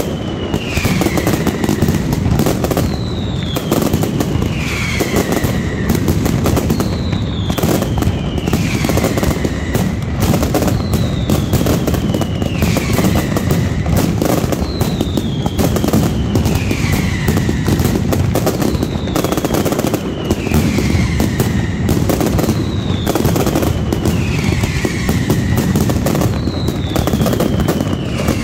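Mascletà firecrackers going off in a dense, unbroken barrage of rapid bangs, steady in loudness throughout. A falling whistle recurs about every two and a half seconds over the crackle.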